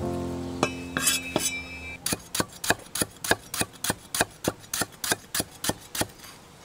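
A cleaver slicing a lemongrass stalk on a wooden chopping board, with steady, even chops about three a second. It starts about two seconds in, after a few knocks of hands tossing raw intestine and tripe in a stainless-steel colander.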